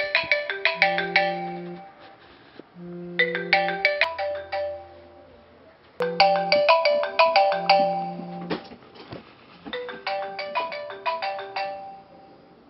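Smartphone ringtone for an incoming call: a short melody of quick notes repeated four times, about every three seconds, with a brief low buzz about four seconds in. It stops about twelve seconds in.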